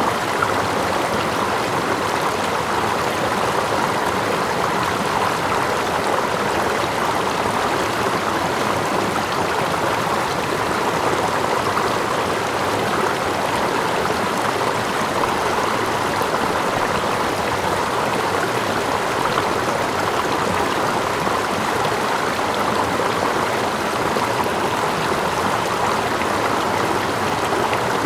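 Steady running water: a stream with gentle water lapping close by and a small waterfall further back, blended into one even, unchanging rush.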